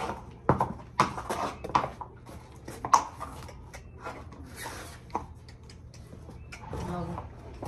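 Irregular knocks and scuffs of horses' hooves shifting and stepping on a concrete stable floor as a horse turns around.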